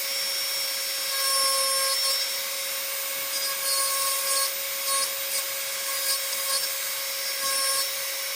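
Dremel 4000 rotary tool running with a steady high whine while a small carbide inverted-cone bit grinds wood, in several short cutting passes that add a rasping hiss.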